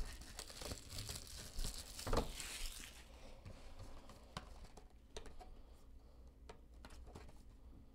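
Plastic shrink wrap crinkling and tearing as it is pulled off a cardboard trading-card box, followed after about three seconds by faint scattered taps and scrapes of the box being handled.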